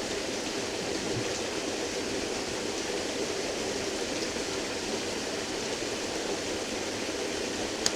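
Steady rush of a small waterfall close by, an even noise of falling water. A single brief click comes just before the end.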